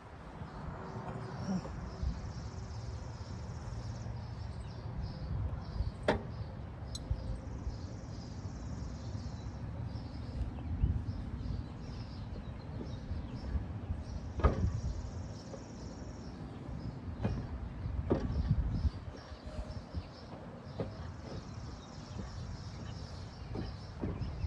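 Handling noise from work on a lawnmower: a few sharp knocks, from about six seconds in to past halfway, over a steady low rumble.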